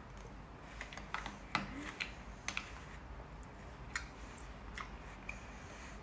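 Light clinks of a metal spoon against a cut-glass bowl and the ice in a fruit punch as it is scooped: a scattering of short, sharp clicks, several close together in the first half.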